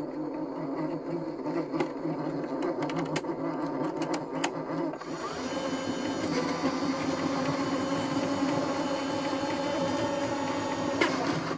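Bambu Lab AMS feeder motor running, drawing filament off the spool through a ceramic feed guide as the slot loads. It makes a steady motor whir with a few sharp ticks in the first half, and the whir changes character about five seconds in.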